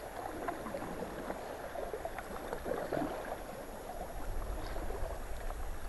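River water gurgling and lapping against an inflatable raft, with small splashes of paddles dipping in. A low rumble comes in near the end.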